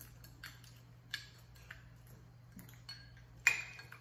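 Metal spoons clinking against small ceramic bowls: a few light, separate taps with a short ring, the loudest about three and a half seconds in.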